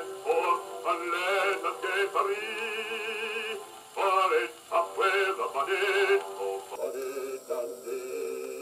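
A 78 rpm shellac record of a singer with orchestral accompaniment, played acoustically on an HMV 162 gramophone through an HMV No.4 soundbox, the voice held with a wide vibrato. About seven seconds in, it cuts to the same record played through a home-made 3D-printed soundbox, which sounds quieter and duller.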